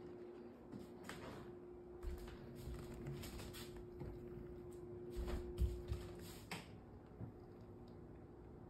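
truMedic Coda massage chair running a massage program: a steady motor hum with scattered light clicks and a few soft thumps. The hum stops about two-thirds of the way through.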